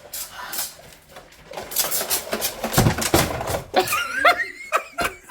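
Indoor water gun fight: a run of quick spraying hisses with heavy thuds, followed by kids shrieking and laughing.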